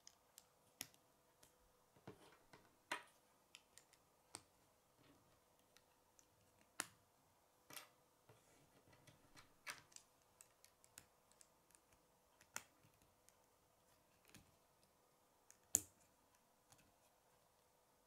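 Plastic K'nex rods and connectors clicking and snapping together as a model is assembled by hand: scattered sharp clicks at irregular intervals, the loudest about three-quarters of the way through.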